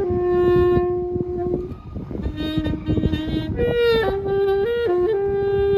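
A reed wind instrument playing a slow melody of held notes that step down and back up, with a bright, reedy tone. Wind buffets the microphone underneath.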